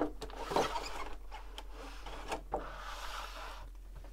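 Clear plastic clamshell packaging in its plastic sleeve being handled: crinkling and rustling with scattered light clicks, and a longer rustle in the second half.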